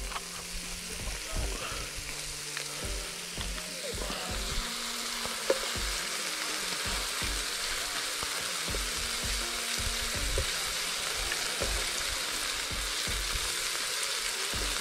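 Vegetables sizzling in a metal cooking pot over an open fire: a steady frying hiss that grows a little fuller after about four seconds.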